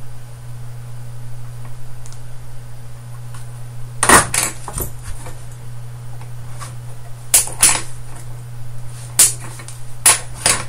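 Flush cutters snipping the excess leads off a freshly soldered through-hole resistor: about seven sharp clicks, a pair about four seconds in and more in the second half, over a steady low hum.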